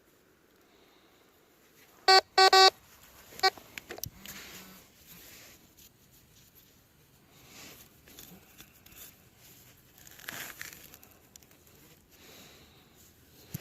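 Tesoro Mojave metal detector beeping: three short, loud tones a little after two seconds in and a shorter one about a second later, the signal of a buried metal target. Quieter rustling and scraping follow.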